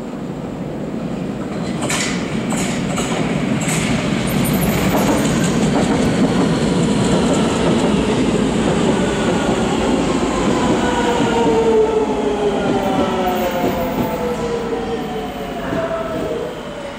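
Nagoya Higashiyama Line subway train running into an elevated station: a rumble building, with a run of sharp wheel clicks over the rail joints a few seconds in, then the traction motors' whine of several tones falling steadily in pitch as the train brakes to a stop.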